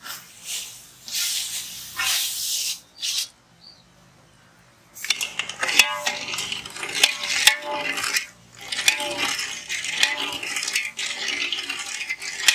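Granulated sugar poured in a hissing stream into a steel pot of water. After a short pause, a perforated steel ladle stirs and scrapes against the pot with repeated clinks, dissolving the sugar for syrup.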